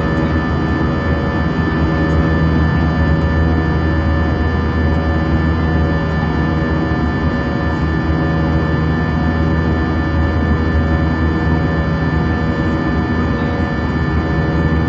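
Steady drone of an airliner in flight heard inside the cabin: engine and air noise, a low rumble with several steady tones above it, unchanging throughout.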